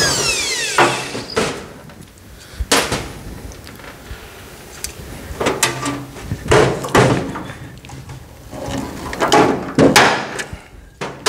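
Hand pop-rivet gun setting rivets through a thin aluminum floor panel: a dozen or so sharp snaps and clicks in irregular groups as the handles are squeezed and the mandrels break. A cordless drill's falling whine winds down at the very start.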